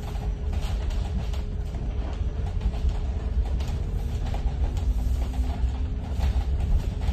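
Lion all-electric school bus rolling slowly over gravel: a steady low rumble from tyres and suspension, with frequent rattles and knocks from the body, and no engine note beyond a faint steady hum.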